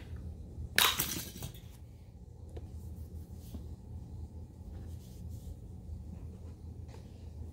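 Hot Wheels die-cast toy cars rattling down plastic track: one sharp clatter about a second in that dies away within about half a second, over a steady low hum.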